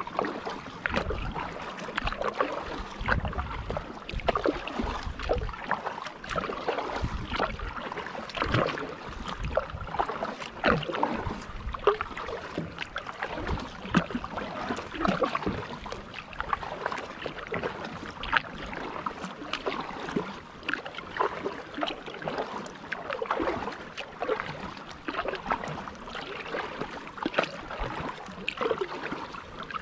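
Kayak paddle strokes through calm water: the blades dip and pull, and water trickles and drips off them in an uneven patter.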